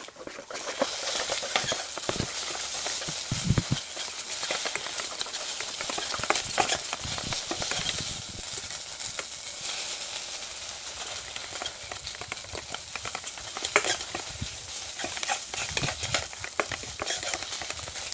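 Beaten egg and glass noodles sizzling in hot oil in a pan, with a spatula stirring and scraping against the pan in frequent short clicks.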